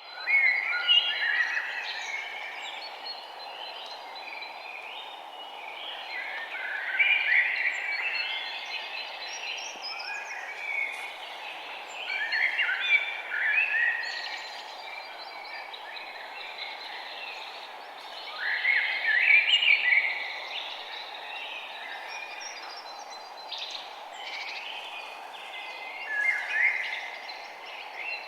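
Forest ambience: birds chirping and trilling in bursts every few seconds over a steady low background hiss.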